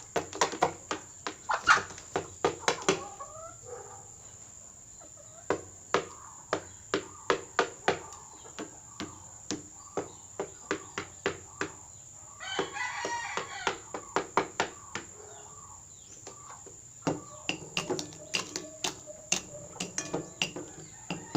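Rooster pecking at otap biscuits: quick clusters of sharp taps of the beak on the food and the surface under it, with soft low clucks between. About halfway through the rooster crows once, briefly.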